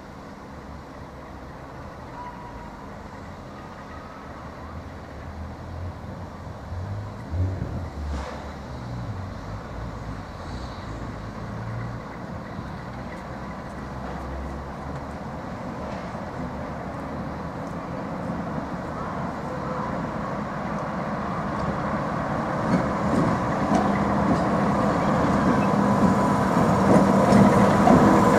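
Class 45 'Peak' diesel-electric locomotive running on its own, its Sulzer twelve-cylinder engine growing steadily louder as it approaches.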